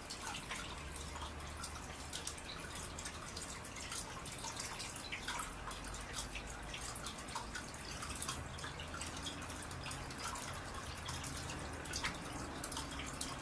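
Faint water dripping and trickling steadily in a turtle tank, with many small drips and a faint low hum underneath.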